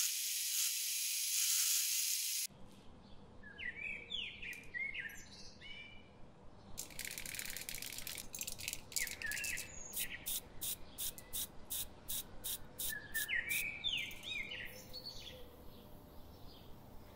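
A rotary tool's small burr grinding a small steel part, cutting off after about two and a half seconds. A spray paint can is then shaken, its mixing ball rattling in a steady rhythm of about two or three rattles a second, while birds chirp.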